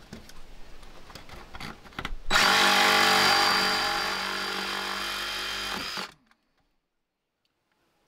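Cordless DeWalt saw cutting into the wooden deck framing: a few faint knocks as it is set against the wood, then the motor runs loud and steady with a high whine for several seconds and cuts off suddenly.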